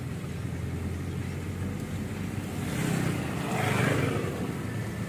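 A road vehicle passing close by, its noise swelling and fading about three to four seconds in, over a steady low hum.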